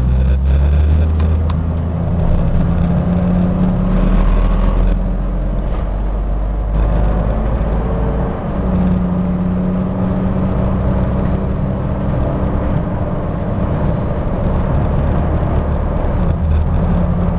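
Ford E-Series van's V10 gasoline engine pulling the van from inside the cab, with road noise. The engine note changes a few times as the automatic transmission shifts up through the gears.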